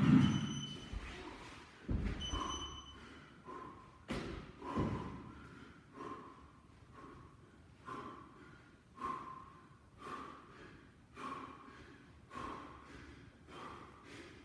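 A man's forceful breathing during fast sit-ups, with a sharp breath out about once a second. A loud thump of the body on the floor comes at the start, with a few more low thumps in the first five seconds as he changes position. Two short high beeps sound near the start.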